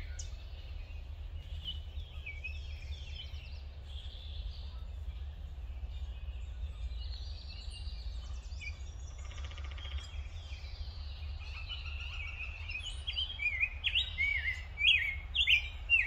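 Rose-breasted grosbeak singing: phrases of warbled whistles that rise and fall, softer at first and louder in a run of phrases near the end, over a steady low rumble.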